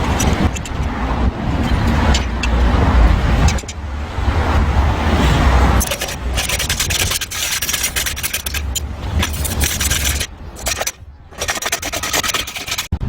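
A motor running with a steady low hum. In the second half it gives way to dense scraping and rattling, broken by two short pauses.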